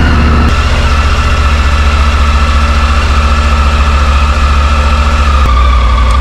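Triumph Tiger 900 Rally Pro's 888 cc inline-three engine idling steadily just after being started. It cuts off suddenly at the very end.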